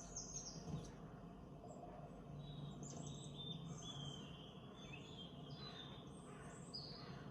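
Small birds chirping and twittering in short repeated calls over a faint steady low hum.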